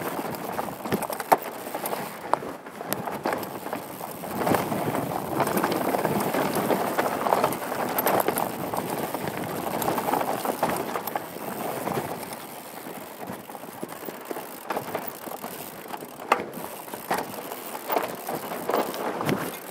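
Downhill mountain bike riding fast over rocky dirt singletrack, heard from a helmet-mounted camera: a steady rush of tyres on dirt and gravel with frequent sharp knocks and rattles as the bike hits rocks. It is louder for a stretch in the middle.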